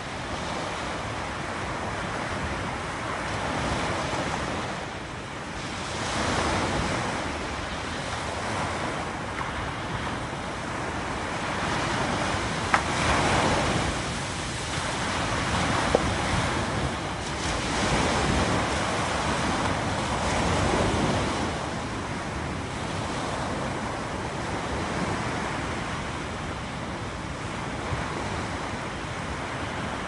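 Small waves breaking and washing up on a sandy beach, the surf swelling and falling back every few seconds. Two brief sharp clicks sound near the middle.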